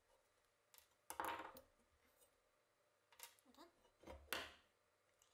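Steel rifle parts and a screwdriver clinking and knocking against each other and the wooden workbench while the action is taken apart. Several short clicks, the loudest about a second in and about four seconds in, with near silence between.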